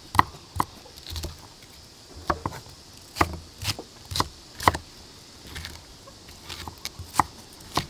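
Large kitchen knife dicing onion on a thick wooden chopping block: sharp knocks of the blade striking the wood at an uneven pace, with short pauses between runs of cuts.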